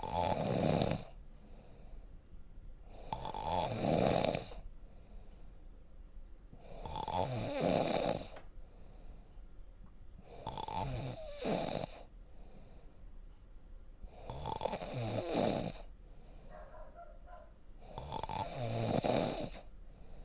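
A person snoring in a steady rhythm: six snores, each about a second long, coming about every four seconds, with quieter breathing between them.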